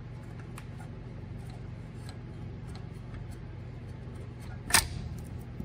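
Light metallic ticks as an aircraft wheel brake caliper is worked back along its guide pins, with one sharp metal clack about five seconds in, over a steady low hum.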